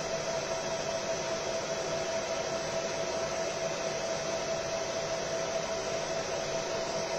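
Fiber laser marking machine running: a steady, even hiss like a cooling fan, with one constant mid-pitched hum through it.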